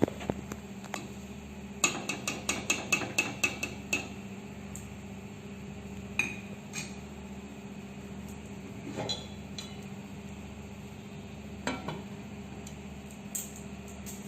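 Metal cookware clinking: a quick run of about ten ringing clinks, then a handful of single clinks, over a steady low hum.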